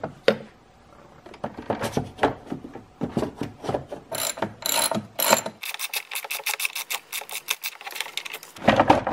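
Hand socket ratchet clicking as the battery terminal clamp nuts are loosened: irregular bursts of clicks, then about three seconds of fast, even clicking starting just past halfway.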